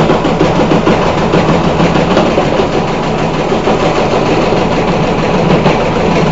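Washing machine running so violently that it shakes and 'dances' across the floor: a loud, steady, rapid rattling vibration with a deep hum underneath.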